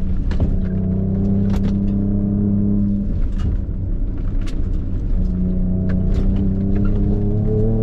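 Ford Ranger Raptor's twin-turbo V6 running at a steady low speed on a dirt trail, its note dipping briefly about three seconds in and coming back up, with scattered knocks and rattles throughout.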